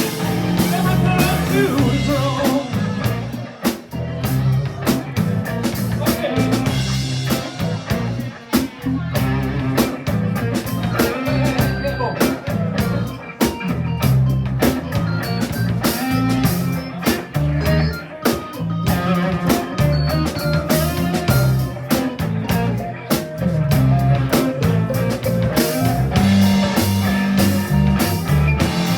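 Blues band playing: guitar, keyboard, bass and drums at a steady beat.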